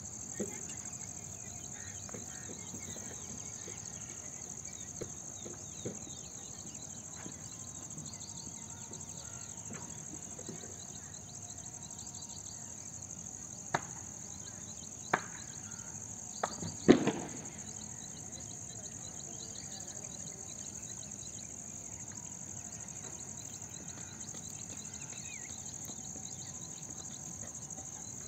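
Insects chirring steadily in a high-pitched drone across dry grassland. A few sharp clicks or knocks come around the middle, the loudest a little past halfway.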